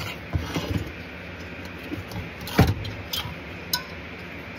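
Knocks, clicks and rattles of a diesel heater's control board and wiring harness being handled against the heater's metal housing, in several separate knocks with the loudest about two and a half seconds in. A steady low hum runs underneath.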